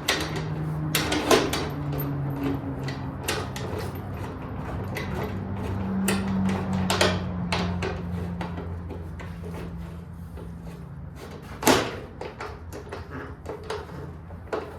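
Scattered metal clicks and knocks of tools and parts being fitted, with one loud knock about twelve seconds in, over a steady low hum that fades out after about eleven seconds.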